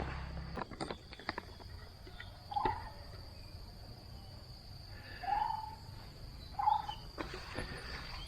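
An unidentified bird giving three short, low calls a few seconds apart. A steady high insect drone runs beneath them.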